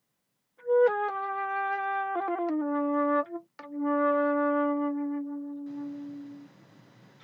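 Solo wind instrument playing a slow, descending melody of a few notes, ending on a long held low note that fades away. Faint hiss follows.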